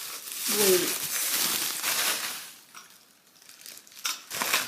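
Packaging being handled during unboxing: crinkling and rustling that dies down for a moment about three seconds in, then a few taps and more rustling near the end.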